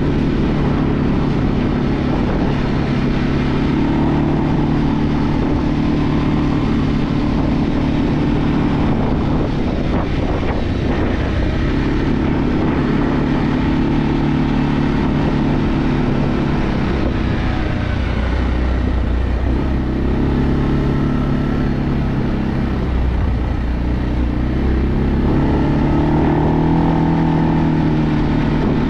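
Segway Snarler AT6 L ATV's 570 cc single-cylinder four-stroke engine running under way at a steady cruise. Its pitch sags and climbs again a few times as the throttle is eased off and reopened.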